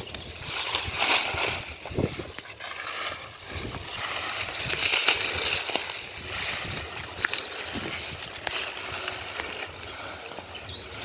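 Muddy shallow water sloshing and splashing as it is stirred by hand, uneven throughout, with scattered small knocks.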